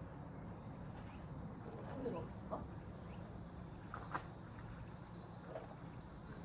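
Cicadas chirring in a steady, high-pitched chorus, with a few faint short sounds over it about two and four seconds in.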